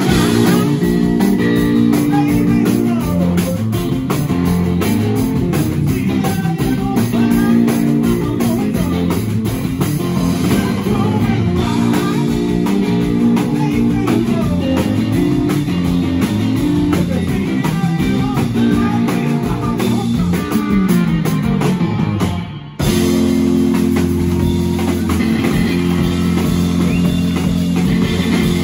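Live blues-rock band of two electric guitars and a drum kit, with no bass, playing with a male voice singing. The band stops for a short break about 22 seconds in, then comes straight back in.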